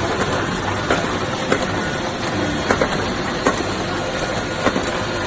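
Automatic fold-wrapping machine for bouillon cubes running: a steady mechanical whir with a low hum, and sharp clacks at irregular intervals.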